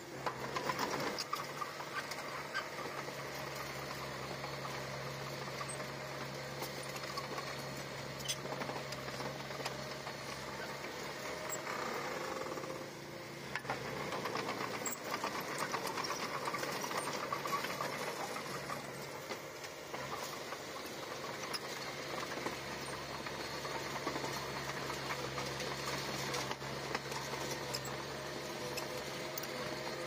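Komatsu D20P bulldozer's diesel engine running steadily with a fast, even clatter, easing off briefly near the middle.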